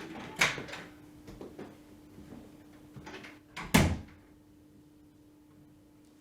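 A door being handled: a sharp sound about half a second in, a few light knocks, then a heavy thud as it shuts a little before four seconds in.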